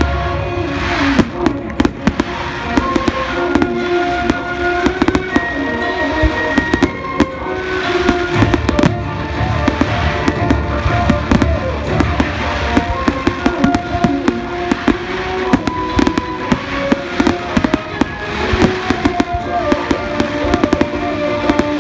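Fireworks going off: many sharp bangs and crackles at an irregular, rapid rate, over the display's accompanying music.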